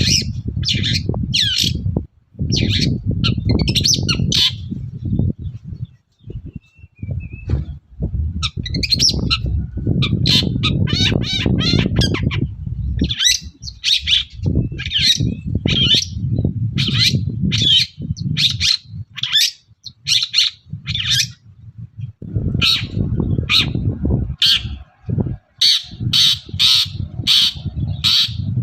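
Long-tailed shrike (cendet) singing in short, harsh, scratchy bursts repeated about once a second, with a pause about six seconds in. A low rumbling noise runs underneath.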